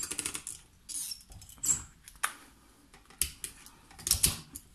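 Hand-held hole punch and eyelet-setting pliers being handled and squeezed: a scattering of sharp metal and plastic clicks and clacks, the loudest pair near the end.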